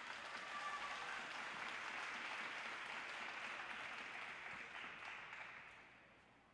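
Audience applause, holding steady and then dying away near the end.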